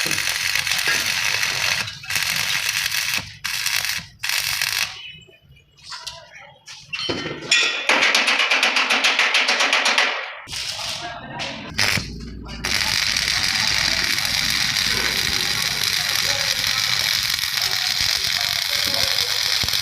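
Stick welding arc crackling and hissing. It comes in short runs broken by pauses through the first half, then holds one steady run over the second half.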